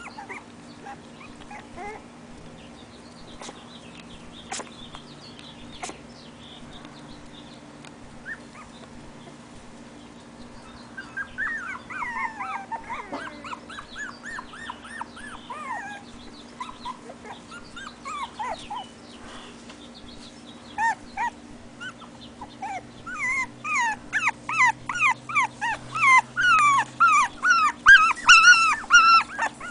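Young puppies whimpering: many short, high-pitched whines that fall in pitch. They are scattered at first, then come rapidly and louder over the last six seconds or so.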